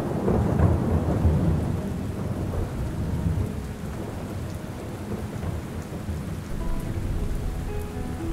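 Rolling thunder over steady rain. The rumble is loudest in the first couple of seconds, then dies away and leaves the rain hissing on its own.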